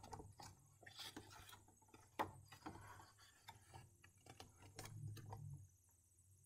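Faint handling of a paper picture book: a page being turned, with a few soft clicks and a light paper rustle.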